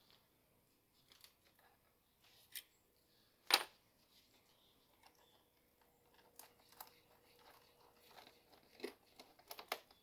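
Scattered plastic clicks, knocks and rustling as an engine air intake duct is handled and pushed into place, with one sharp click about three and a half seconds in and a run of quicker clicks near the end.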